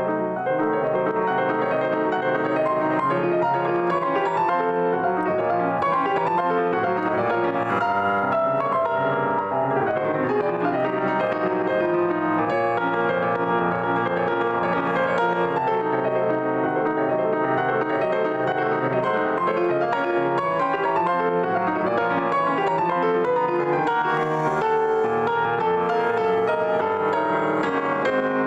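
Grand piano played solo: a continuous passage of many overlapping notes at an even loudness.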